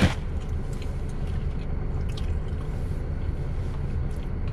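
A wet smack of lips as fingers are licked clean right at the start, then quiet chewing over a steady low hum inside the car.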